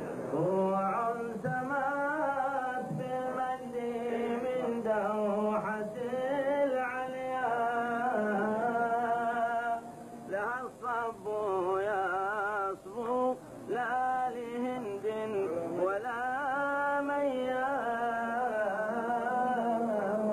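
A man singing a slow, melismatic Arabic devotional chant, holding long, wavering notes and sliding between them, with a few short breaks in the middle.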